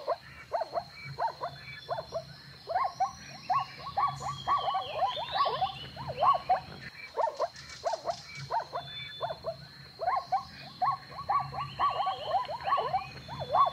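Zebras calling: short repeated calls from several animals at once, several a second and overlapping, each falling in pitch.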